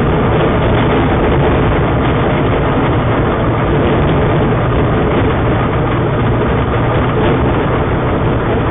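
Light homebuilt taildragger's engine and propeller running steadily, loud inside the cockpit, as the plane rolls along a grass strip after landing.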